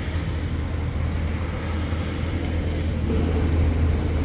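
Car engine idling with a steady low rumble, growing a little louder about three seconds in.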